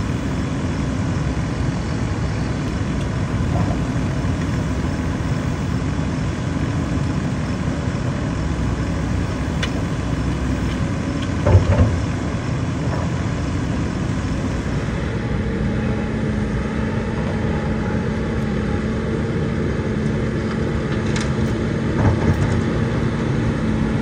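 Heavy diesel machinery running steadily, with a short knock about halfway through and another near the end; a steadier hum comes in past the halfway mark.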